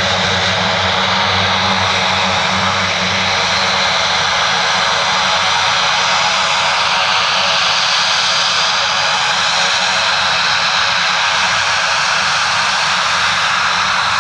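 The twin Garrett TPE331 turboprop engines of a Fairchild Swearingen Metro 23 with five-blade propellers, running steadily at low power as the aircraft taxis and lines up on the runway: a high turbine whine over a low propeller buzz.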